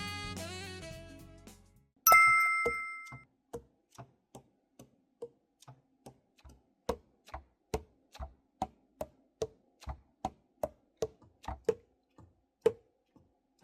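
Background music fades out, then a bright two-tone chime rings about two seconds in. A string of light, irregular clicks follows, roughly two a second.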